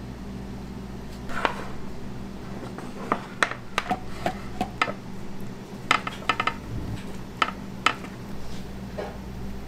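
Kitchen clatter: a dozen or so sharp metal clacks and knocks from utensils against steel food inserts and square steel pizza pans, bunched in the middle, over a steady low hum.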